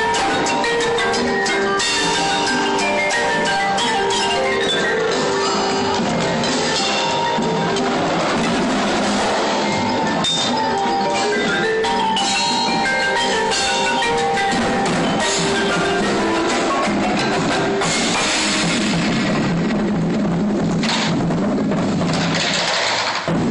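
Winter drumline percussion ensemble playing: marimbas and other mallet percussion over marching bass drums, with an electric bass guitar in the front ensemble.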